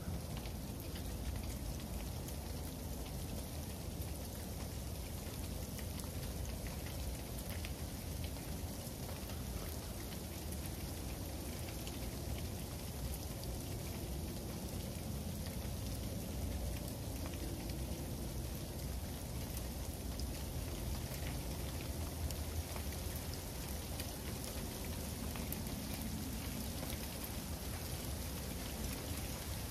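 Freezing rain of an ice storm falling steadily, with many small sharp ticks of drops hitting hard surfaces, over a low steady rumble.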